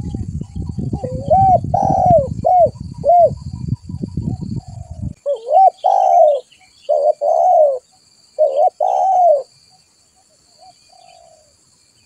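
Spotted dove cooing in short repeated phrases of arched, mellow coos. A low rumbling noise runs under the first five seconds and cuts off suddenly, leaving clean coos that thin out to a few faint notes near the end.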